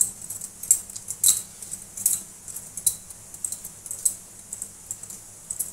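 Bangles clinking in short, irregular clicks, several a second, as hands knead a stiff maida dough.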